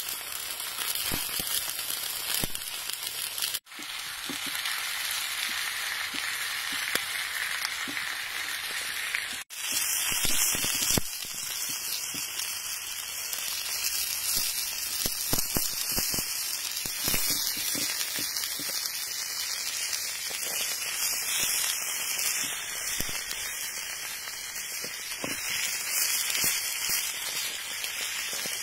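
Cleaver slicing through a raw animal heart and knocking on the stone slab beneath it, a string of short knocks over a steady crackling hiss. The sound cuts out briefly twice.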